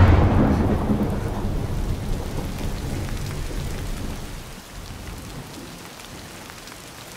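A thunderclap breaks suddenly and rumbles deep, fading away over about four seconds, while heavy rain pours down steadily onto pavement.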